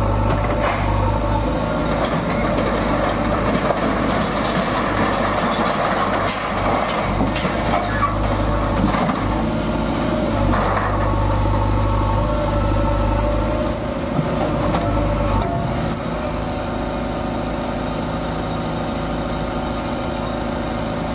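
Diesel engine of a JCB backhoe loader running while it demolishes a tin-roofed shack. About 16 seconds in it settles to a steadier, slightly quieter idle.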